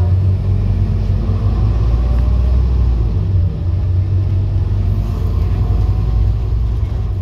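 A Scania N230UD OmniCity double-decker bus's five-cylinder diesel engine running under way, heard from inside the passenger saloon as a steady low drone. A faint whine rises in pitch over the first few seconds as the engine pulls.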